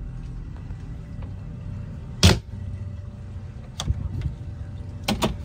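A few sharp knocks over a low steady rumble. The loudest knock comes about two seconds in, a weaker one near four seconds, and two quick ones come near the end.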